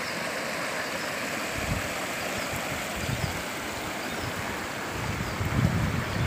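Shallow, low-water river running over stones and stone weirs: a steady rushing, with a few low bumps on the microphone now and then.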